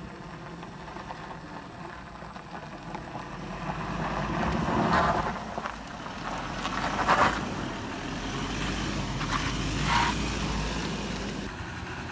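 A motor vehicle's engine working over a rough dirt road, growing louder a few seconds in, with three short louder surges about two to three seconds apart before it eases near the end.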